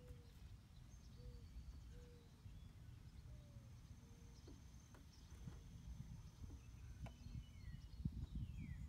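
Near silence: faint outdoor background with a low rumble and distant birds calling, including a falling whistle near the end.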